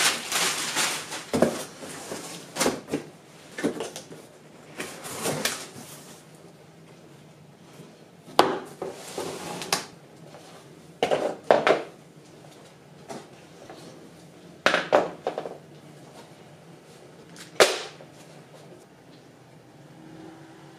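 A cardboard skate box and its packaging being opened and handled: irregular bursts of rustling and scraping with several sharp knocks, busiest in the first few seconds and dying away after about eighteen seconds.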